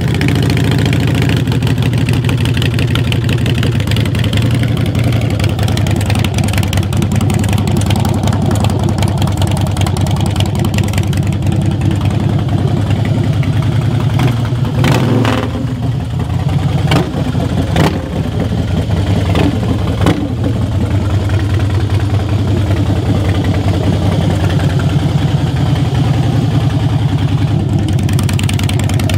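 2007 Harley-Davidson Night Train's Twin Cam V-twin running at idle through loud aftermarket pipes fitted with torque cones to restore back pressure, a steady low rumble. A few sharp cracks come about halfway through.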